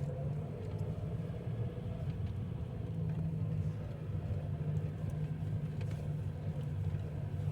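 Off-road 4x4 vehicle driving slowly on a dirt track: a steady low engine drone with a few faint knocks and rattles.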